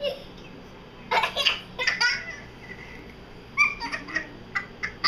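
Young child laughing in several short bursts of giggles and belly laughs: about a second in, again around two seconds, and in a quick run near the end.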